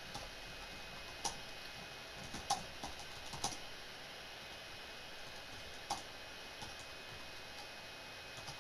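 Typing on a computer keyboard: faint, uneven keystroke clicks.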